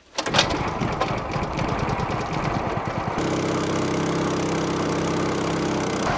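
Small boat's outboard motor running steadily under way, a fast even chugging. About three seconds in the sound changes abruptly to a steadier hum with a clear pitch.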